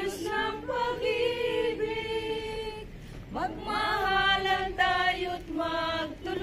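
A group of voices, mostly women's, singing a hymn together without accompaniment, in long held notes, with a brief break about three seconds in before the singing picks up again.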